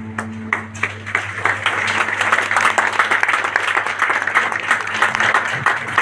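Crowd applauding: a few scattered claps swell within the first two seconds into steady, dense applause, while the music underneath fades out.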